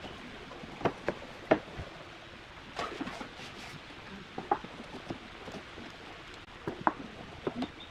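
Thin bent wood strips knocking and clacking against wooden form blocks and a plywood tabletop as they are pressed into a curved bending jig: a scatter of short, irregular wooden knocks.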